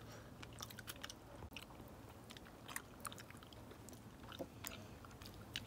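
Faint, close chewing and biting of steamed eel, with scattered small clicks.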